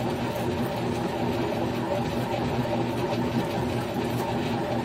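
Grizzly G1007 mill-drill running steadily, its motor giving a constant hum while the spinning cutter mills a 6061 aluminum bar.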